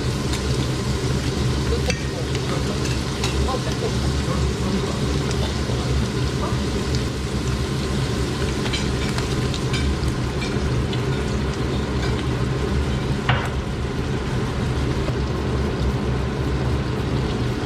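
Ground beef and garlic frying in olive oil in a pan, sizzling steadily while being stirred, over a constant low hum. There is a sharp knock about 13 seconds in, likely a utensil against the pan.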